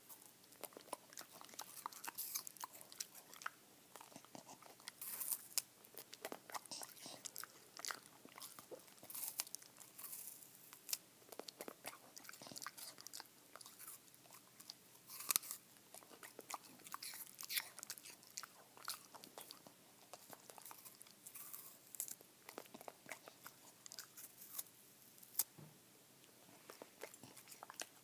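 A beagle biting and crunching pieces of apple, chewing with many irregular sharp crunches.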